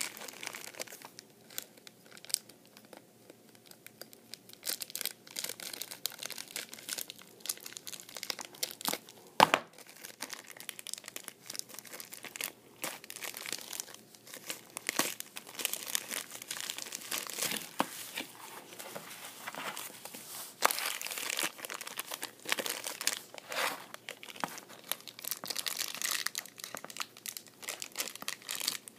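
Thin clear plastic bag crinkling and rustling as it is handled and cut open with scissors, in irregular crackles, with one sharp snap about nine and a half seconds in.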